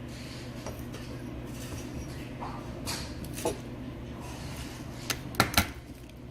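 A few sharp clinks and knocks of kitchenware, with a quick cluster about five seconds in, over a steady low hum.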